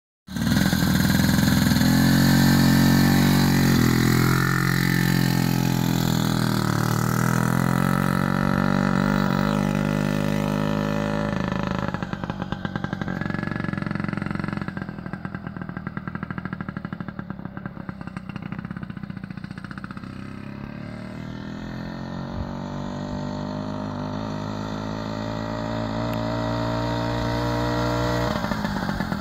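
A freshly restored 1934 Coventry Eagle motorcycle's engine running under way, its note rising and falling with the throttle as it passes close by. It fades as the bike rides off down the road, then grows louder again as it comes back.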